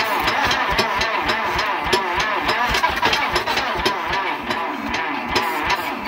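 1952 Case DC3 tractor engine being cranked over by its electric starter, with a fast, even chug of compression strokes under the starter's whine. It turns over steadily but does not catch.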